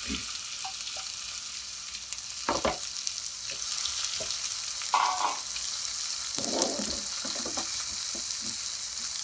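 Chopped onion sizzling as it fries in hot oil, stirred with a silicone spatula, with a few louder strokes of the spatula in the pan. The onion is being sautéed soft at the start of a curry base.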